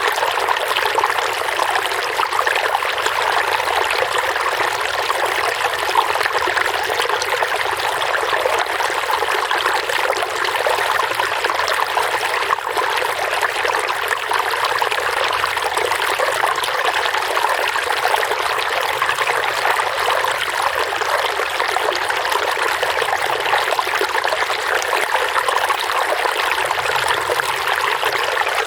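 Running water trickling and babbling steadily, an even wash of water noise with no breaks.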